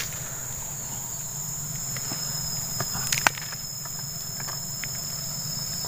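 Insects droning in the surrounding trees as two steady high-pitched tones, the second joining about a second in. A few light clicks from a hand picking at the opened wooden nest log, the sharpest about three seconds in.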